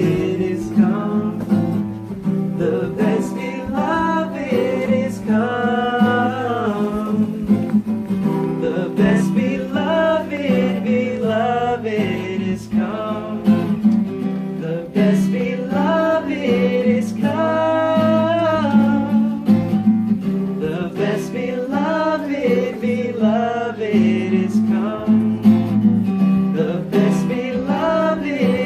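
A song: a voice singing over strummed acoustic guitar.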